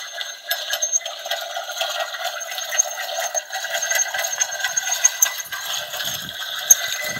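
Water running and splashing steadily.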